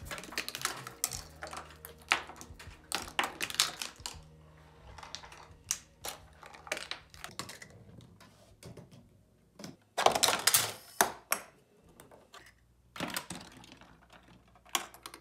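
Balls and plastic K'nex parts clicking, knocking and clattering through a K'nex and Hot Wheels track chain-reaction machine: quick runs of small clicks, with a dense burst of clatter about ten seconds in and another shortly before the end.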